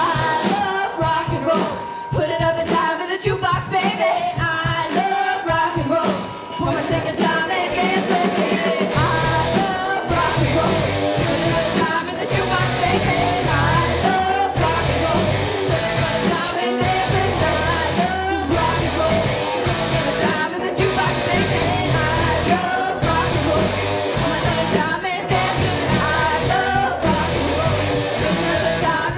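Live rock band playing with a female lead singer, electric guitars and drums. The sound is thin in the bass for the first nine seconds or so, then the full band with bass comes in hard about nine seconds in and plays on.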